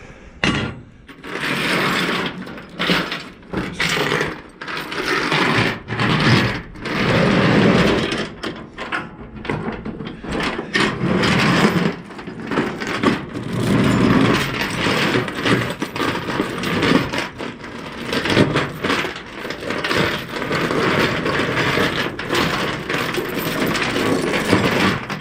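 Steel load chain rattling and clanking in irregular bursts as it is hooked and worked with a snap binder, with sharp metal clicks throughout.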